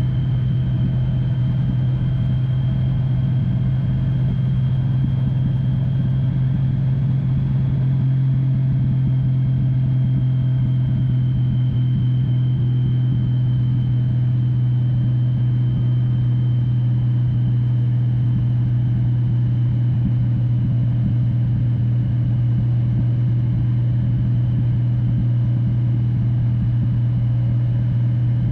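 Touring motorcycle riding steadily down a mountain road: an even, constant low rumble of engine and wind, with a faint steady high whine above it.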